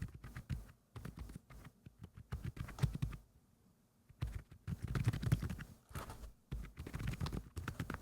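Typing on a custom mechanical keyboard (FinalKey V81 Plus with Akko Silent Penguin silent switches and dampening O-rings under the keycaps): quiet, dampened keystrokes in quick runs, with a pause of about a second a little over three seconds in, then steady typing.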